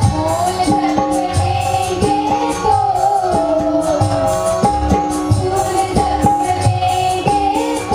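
Qawwali music: a harmonium melody over steady hand-drum beats, with voices singing.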